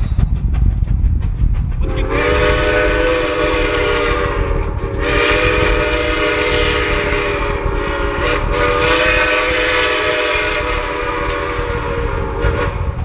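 Steam locomotive's chime whistle blowing one long blast of several notes at once, starting about two seconds in, dipping briefly about five seconds in and cutting off near the end, over a steady low rumble of the passing train.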